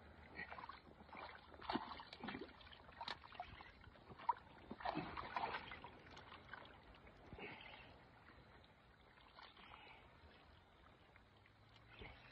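Faint, irregular water splashing with a few sharp clicks, busiest in the first half and quieter after.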